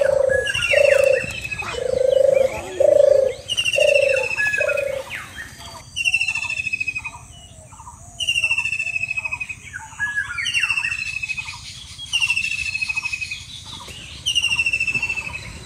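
Birds singing: a short descending trilled phrase repeating about every two seconds. Six low hooting notes sound in the first five seconds.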